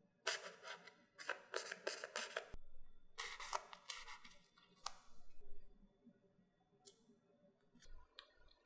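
Crisp crust of baked choux pastry shells crackling and scratching as a thin metal chopstick is pushed into the bottom of each shell to make a hole, in several short bursts over the first five seconds, with a few faint clicks near the end.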